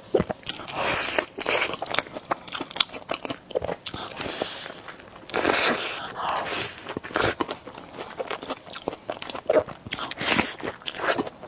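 Close-miked eating of spicy noodles: several long hissing slurps of noodles, about four, with crisp bites and chewing clicks between them.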